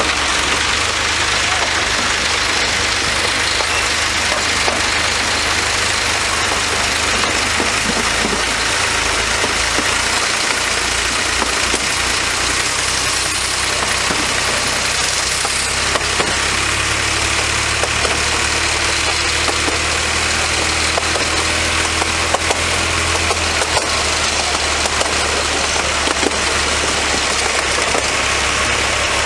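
Minimum-gauge diesel locomotive engine running steadily while the train is under way, with a constant hiss of travel noise over it. A second low engine tone joins in for several seconds past the middle.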